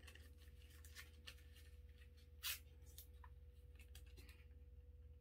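Near silence with faint fingers handling and peeling a small plastic sticker packet, one brief rustle about two and a half seconds in, over a faint steady hum.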